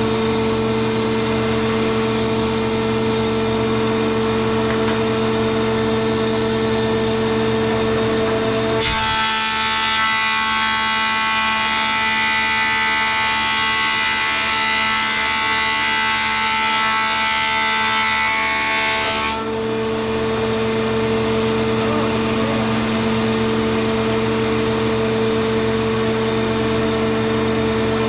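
Vintage 1959 Powermatic 160 16-inch wood planer running with a steady hum. About nine seconds in, the sound changes to a higher-pitched whine with hiss as a maple board feeds through the cutterhead for about ten seconds. Then it goes back to the free-running hum.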